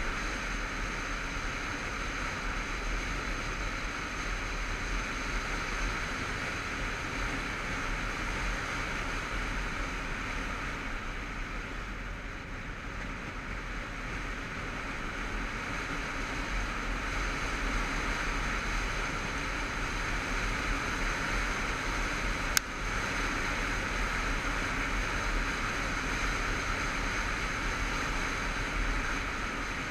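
Motorcycle riding at road speed: a steady rush of wind noise on the onboard camera microphone over the running engine, easing slightly midway, with one sharp click near the end.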